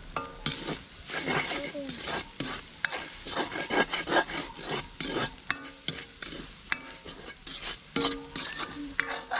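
A ladle stirring and scraping fried rice in a large aluminium wok over a wood fire: quick repeated scraping strokes, about two to three a second, over the sizzle of the frying rice.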